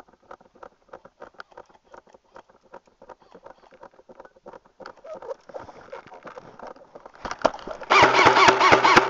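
Snow crunching in a quick irregular patter of small crackles under boots and gear as a player moves through trampled snow. About a second before the end, a loud voice shouts over it.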